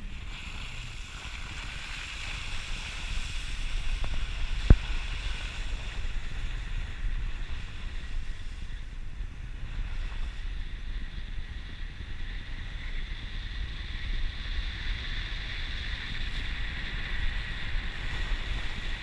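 Wind and road noise on an action camera mounted outside a vehicle driving over snow-covered ground: a steady rushing hiss over a low rumble, with one sharp click about five seconds in.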